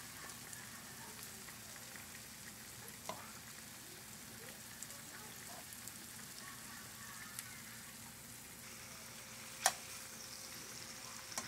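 Food frying in a skillet with a soft, steady sizzle while sliced bell peppers and onions are stirred with a fork. A few small clicks, and near the end one sharp click of a metal utensil against the pan.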